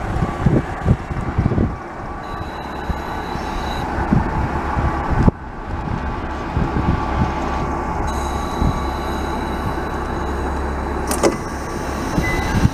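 JR KiHa 48 diesel railcar idling at the platform. Gusts of wind buffet the microphone in the first few seconds, and after a sudden break about five seconds in, a steady low engine drone takes over.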